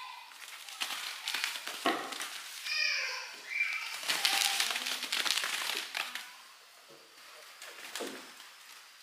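Kittens scuffling on a floor mat: a run of scratchy, crinkly scrabbling from paws and claws, loudest about four to six seconds in and quieter near the end. A few short high-pitched cries come about three seconds in.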